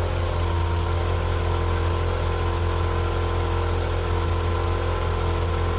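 Steady mechanical hum of a running motor or engine: a constant low drone with a few steady tones above it, unchanging throughout.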